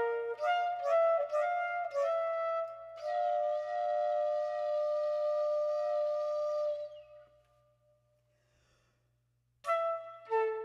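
Solo flute playing quick, separately tongued notes, then a held, airy sound with two tones sounding at once that fades away about seven seconds in. After a couple of seconds of silence, quick tongued notes start again near the end.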